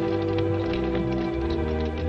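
Orchestral film-score music with held chords and a low bass line; the chord changes about one and a half seconds in.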